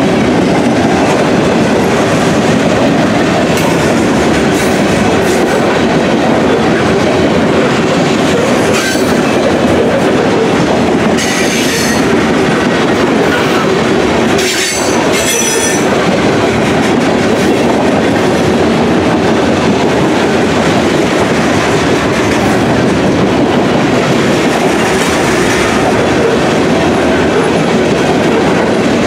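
Freight train's covered hopper cars rolling past close by: a steady rumble of steel wheels on rail with a rhythmic clickety-clack. A few brief high-pitched wheel squeals come near the middle.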